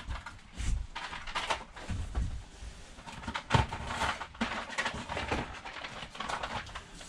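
Irregular rustling, clicks and knocks of boxed goods and their cardboard and plastic packaging being handled and set down.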